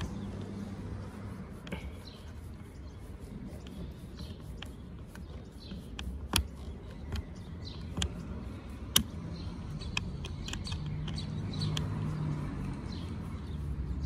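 Sharp, scattered clicks and taps of a thin screwdriver working a screw into the plastic door-mirror housing of a VW Golf Mk5 GTI, about half a dozen spread through the middle, over steady low background noise.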